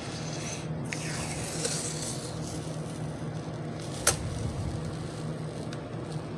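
Blue painter's tape being pulled off its roll and pressed around a plastic power-bank case: a soft, noisy peeling and rustle, with one sharp click about four seconds in. A steady low hum runs underneath.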